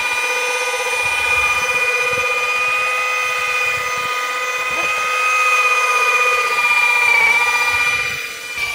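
Electric power tool motor running steadily at speed, a whine made of several pitches at once, which sags briefly and dips in level near the end.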